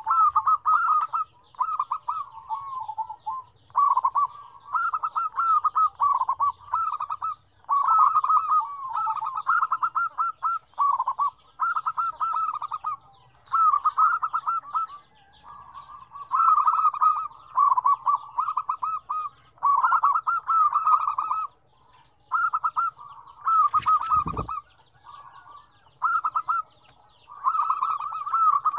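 Several zebra doves (perkutut) cooing in rapid, stuttering rolled phrases that overlap and follow one another almost without pause. A single sharp knock comes about 24 seconds in.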